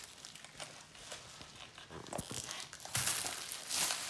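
Clear plastic wrapping crinkling and rustling as a slime jar is unwrapped by hand, in irregular handling noises that grow louder about three seconds in.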